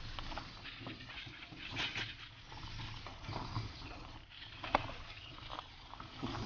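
Wheelbarrow rolling over gravel, with a steady low rumble and scattered rattles and knocks, and one sharp knock a little after the middle.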